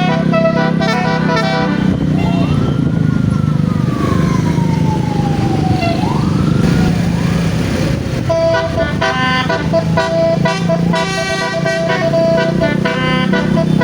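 Bus basuri musical horn playing a fast melody of stepped tones over a steady engine hum. The melody stops about two seconds in, leaving a single tone that rises, slides slowly down and rises again, and starts up again about eight seconds in.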